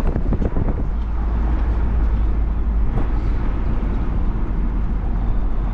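Car driving along a road: steady engine and tyre noise with a strong low rumble, and one light click about three seconds in.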